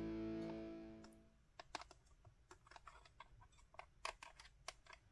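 Music fades out over the first second and a half, followed by a string of irregular small clicks and taps.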